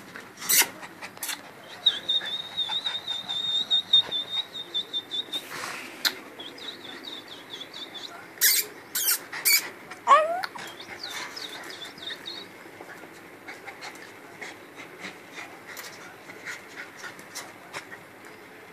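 Small white dog panting rhythmically close up, with clicks of licking and handling. A thin high tone comes and goes through the first half, and a short rising squeal sounds about ten seconds in.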